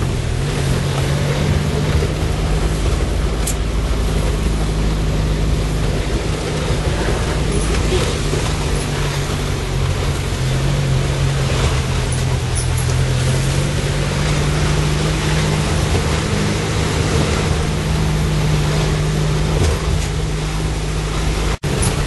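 Car engine and road noise heard from inside the cabin while driving slowly along a narrow paved road. The engine's low hum drops in pitch at the start, then shifts a little up and down with speed over a steady rushing noise.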